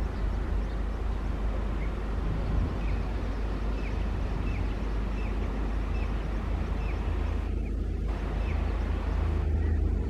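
Steady low rumble of a train running, with a short high chirp repeating every half second or so over it.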